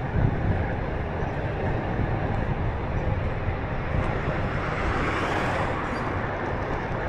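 Wind rumbling on the microphone with steady road and traffic noise during a Onewheel ride, and a hiss that swells briefly about five seconds in.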